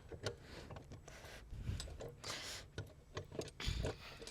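Scattered small clicks and knocks with a few brief rustles as hands work the push-to-release quick-connect fittings on air-suspension hard lines.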